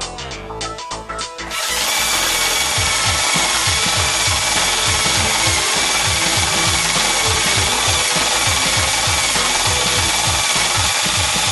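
Power tool cutting or sanding wood: a steady, loud grinding with a faint high whine, starting about a second and a half in after background music.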